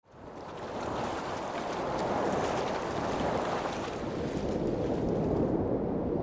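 Steady rushing of sea surf and wind, fading in over the first second.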